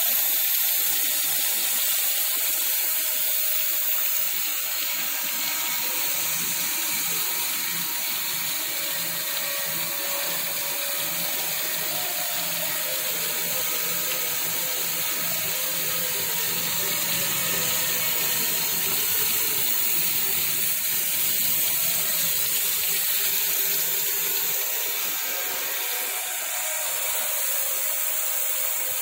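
Cylindrical grinding machine grinding a repaired hydraulic screw shaft under flood coolant: a steady hiss of coolant pouring and splashing over the work, with the machine running underneath.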